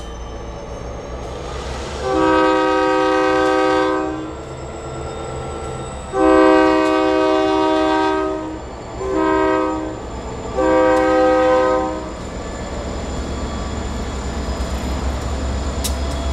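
Diesel locomotive's multi-chime air horn sounding the grade-crossing signal: two long blasts, one short and one long. Under it the locomotive's diesel engine runs with a low rumble that grows louder near the end.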